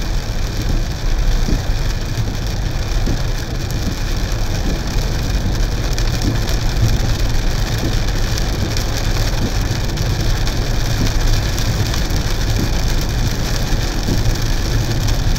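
Steady in-cabin road noise of a car driving in rain: a low rumble from engine and tyres under the hiss of tyres on the wet road and rain on the windscreen.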